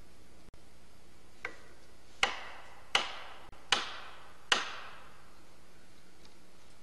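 Blows of a hand tool at a tree being felled: one faint knock, then four sharp, evenly spaced strikes about three-quarters of a second apart, each echoing briefly.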